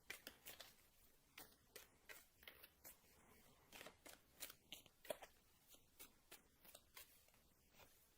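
Faint, irregular soft clicks and rustles of a tarot deck being shuffled by hand.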